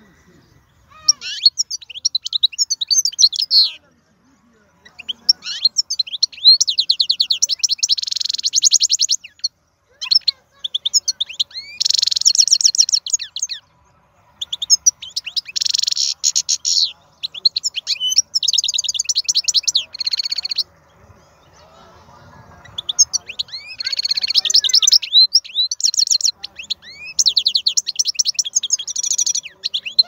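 Wild-caught European goldfinch singing: phrases of rapid twittering and fast trills a few seconds long, broken by short pauses.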